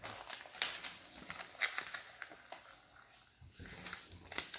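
Sheet of origami paper being folded and creased by hand: soft rustling with scattered short, crisp crackles as the folds are pressed down.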